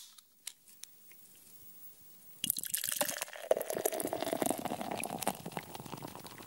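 A few faint clicks, then carbonated soda poured into a glass, starting suddenly about two and a half seconds in: splashing with a dense fizzing crackle that slowly fades near the end.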